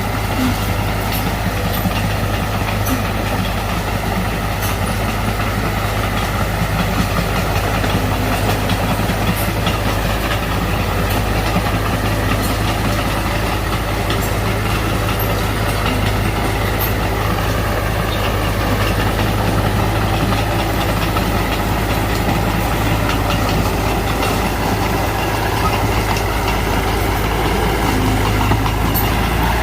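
Heavy diesel engine of earthmoving machinery running steadily with an even, low drone that neither rises nor falls.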